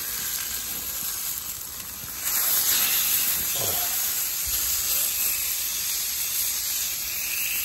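Ribeye steak sizzling on a hot grill, its fat rendering; the hiss of the sizzle gets louder a little over two seconds in.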